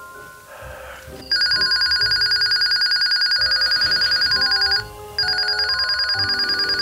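Radio receiving an incoming call, sounding an electronic telephone-style ring: a fast, trilling two-tone ring that starts about a second in and runs for about three and a half seconds, stops briefly, then rings again for about two seconds.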